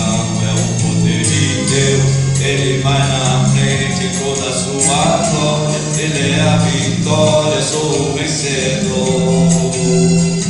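Gospel music: voices singing over a band accompaniment with a steady percussion beat.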